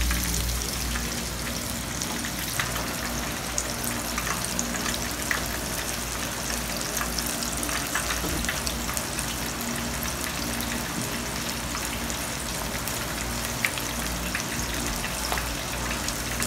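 Breaded shrimp deep-frying in hot oil in a wok: a steady sizzle with scattered small pops and crackles.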